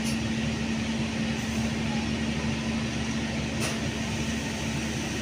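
Passenger train coaches rolling slowly past, a steady running noise with a constant low hum and a faint click from the wheels about three and a half seconds in.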